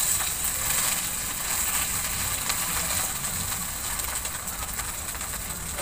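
Seasoned flaked tamban fish frying in hot oil in a pan, sizzling steadily with a high hiss and faint scattered pops.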